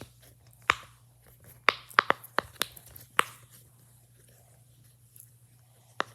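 A soft fidget toy being squeezed and worked by hand, giving a run of sharp, crisp clicks and crunches over the first three seconds or so. After a quiet stretch there is one more click near the end.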